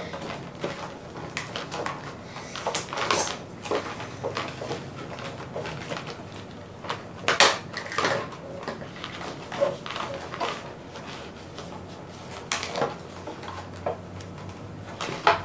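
Clear plastic toy packaging crinkling and rustling as small plastic bicycle parts are pulled out of it and set down on a table, with a few sharper clicks and knocks.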